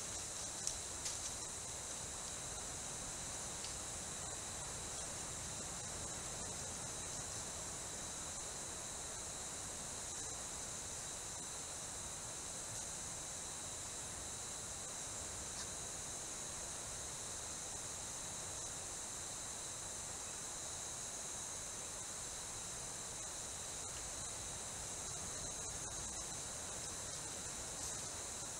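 Rainforest insect chorus: a steady, unbroken high buzzing with a thin constant whistle-like tone under it, and a few faint clicks about a second in.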